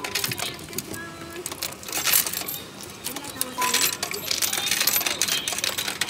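Coins, mostly 10-yen pieces, dropped into a self-checkout payment machine's coin slot, clinking and rattling through the coin mechanism. The clinking comes in clusters, densest about two seconds in and again from about three and a half to five and a half seconds in.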